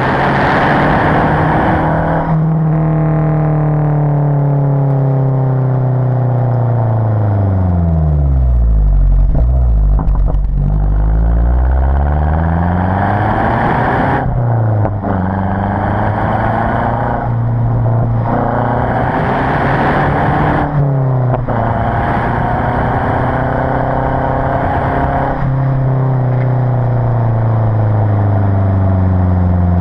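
Mazda 3 MPS's turbocharged 2.3-litre four-cylinder through its stock exhaust, heard from a camera mounted at the tailpipe while driving. The revs fall away off throttle, then climb again through the gears with short breaks at the shifts. Under throttle a rushing hiss joins the exhaust note: the windrush of high exhaust flow.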